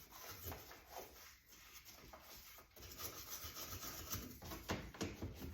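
A toothbrush scrubbing the inside of a dishwasher in a run of short, uneven rubbing strokes.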